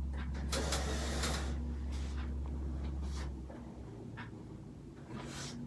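Handling sounds during a chiropractic adjustment: a soft rustle a little under a second in, then a few light clicks, over a low hum that stops about halfway through.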